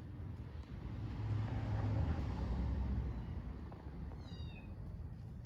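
A kitten gives one short, high, falling mew about four seconds in, over the low rumble of a passing vehicle that swells and fades earlier on.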